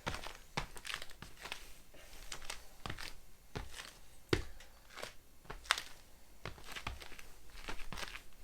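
Scattered rustles, scrapes and small knocks of a hiking shoe being handled and put on, with a couple of sharper knocks midway.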